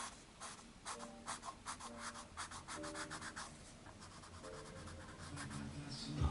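Coloured pencil scratching on coloring-book paper in quick, short shading strokes, several a second, thinning out after the first few seconds.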